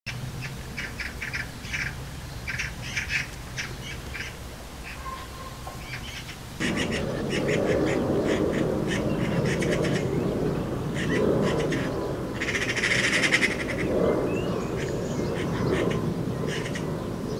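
Eurasian magpies chattering: repeated bursts of harsh calls, with one longer, denser chatter about thirteen seconds in. A steady low background noise comes in abruptly about six and a half seconds in.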